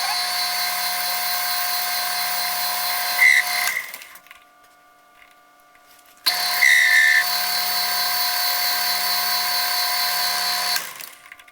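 Metal lathe running while turning aluminum stock to diameter, in two runs of about four seconds each. Each run starts abruptly and dies away, with a short high squeal near its end or start, and the two are separated by a quieter stretch of about two and a half seconds.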